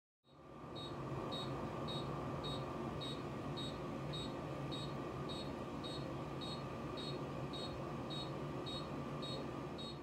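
Anesthesia patient monitor beeping evenly about twice a second, the pulse tone that sounds with each heartbeat of the dog under surgery, over a steady hum of operating-room equipment.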